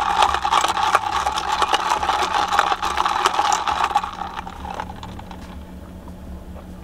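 Plastic straw squeaking and rattling as it is pushed and worked down through the plastic lid of an iced coffee cup, fast crackly clicks for about four seconds that then die away.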